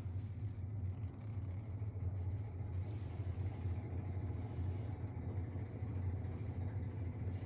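Domestic cat purring: a steady low rumble that runs on without a break.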